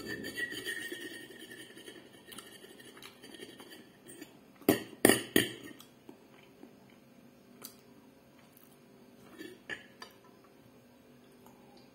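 Cutlery on a plate during a meal: a short scrape at the start, then three sharp clinks in quick succession about five seconds in, and a few scattered taps after that.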